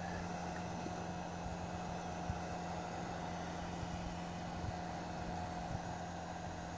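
A steady low hum with a faint, even whine held above it, and a few soft knocks of handling.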